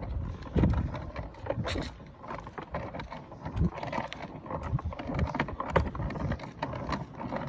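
Ride-on toy police car rolling over concrete: a low rumble from the wheels with irregular clicks and knocks.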